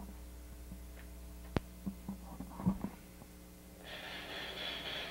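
Steady low electrical hum with a few light clicks and knocks from handling the layout's controls; about four seconds in, a steady hiss comes up.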